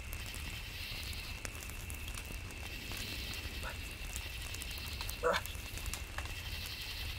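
A small fire crackling softly over a steady high-pitched drone, with one brief louder sound a little past five seconds in.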